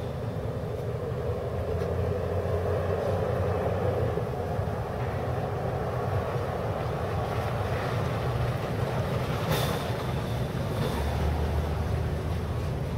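Steady low rumble of outdoor background noise, with one sharp click about ten seconds in.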